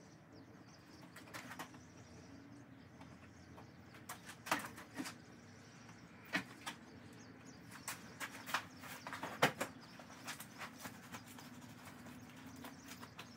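Faint, scattered sharp clicks and knocks of hands and tools at work on a boat transom, strongest near the middle, over a low steady hum.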